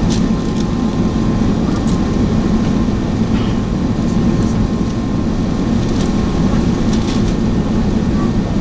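Airbus A380 cabin noise heard from a window seat during the descent: a steady low rumble of the jet engines and airflow past the fuselage, with a faint steady high tone above it.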